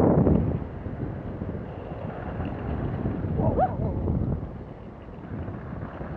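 Wind buffeting the microphone of a helmet-mounted camera while inline skating, easing off about half a second in as the skater slows. A short high squeak rises and falls a little past the middle.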